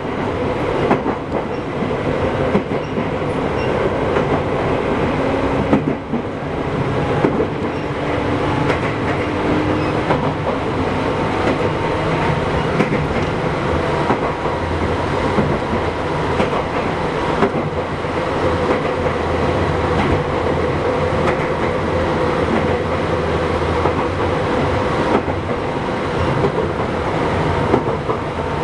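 Izukyu 8000 series electric train running between stations, heard from inside the car: a steady rumble of wheels on rail with a held hum and occasional clicks over the rail joints.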